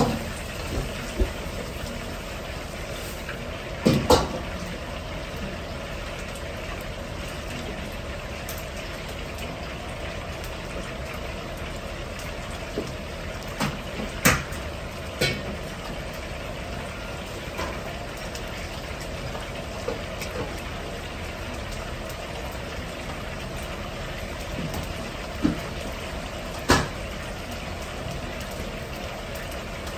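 Starch-coated chicken thigh pieces deep-frying in a wok full of oil, a steady sizzling and bubbling over a low drone. A few sharp clinks sound now and then, loudest about four seconds in and near the end.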